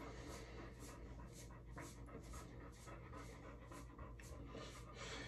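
Faint, rhythmic swishing of a hairbrush drawn through curly hair, about three strokes a second.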